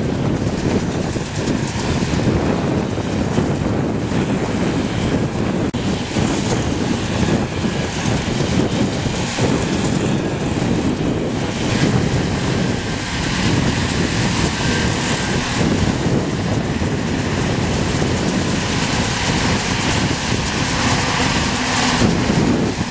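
Farm tractor engine running steadily, heard as a dense, even mechanical noise with no breaks.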